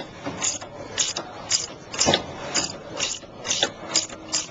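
A 14mm ratcheting wrench clicking in short, even strokes, about two clicks a second, as the nut is backed off a sway bar link's stud.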